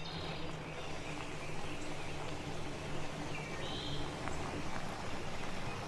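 Cartoon sound effects: a soft, steady low engine hum as the little truck drives off, with a few short, high bird chirps over it, one right at the start and a pair about three and a half seconds in.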